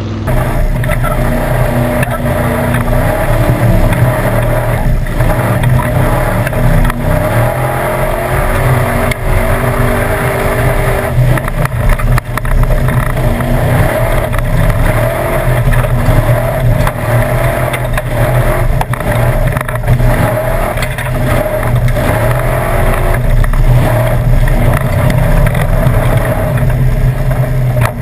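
Formula Offroad street-legal jeep's engine running hard, heard from inside the open roll-cage cockpit, with a steady deep drone and frequent knocks and rattles as the chassis crosses rough ground.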